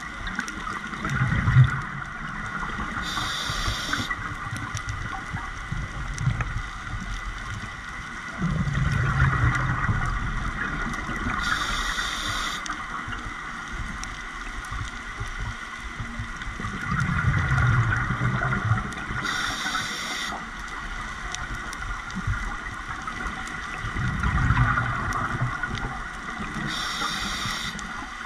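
Scuba diver breathing through a regulator underwater: a short hiss as each breath is drawn, then a burst of bubbling exhaust a few seconds later, repeating about every eight seconds.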